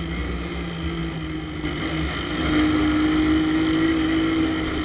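Shineray motorcycle engine running under way, its exhaust pipe holed so it sounds loud and raspy. The engine note rises a little about halfway through and eases slightly near the end.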